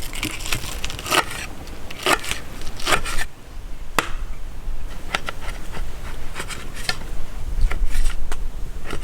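Camp food preparation: irregular knocks, clicks and scrapes of ingredients and utensils being handled and cut on a hard surface, about one sharp sound a second, with a sharper click about four seconds in.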